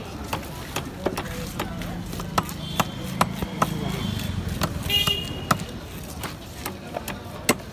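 Scales being scraped off a large bhetki (barramundi), heard as a run of sharp, irregular clicks and scrapes. A low engine hum sits underneath from about a second in until about five seconds in.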